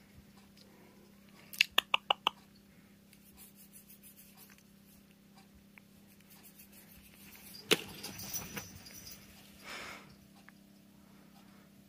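A cat's metal collar tag jingling in a quick run of five clinks, about two seconds in. Later comes a single sharp knock followed by a brief rustle.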